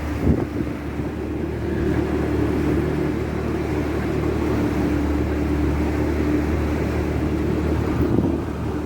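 Boat's engine running steadily under way, a low even drone.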